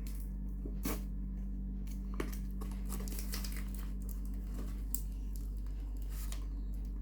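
Packaging being opened by hand: crinkling and tearing with scattered short rustles and clicks, over a steady low hum.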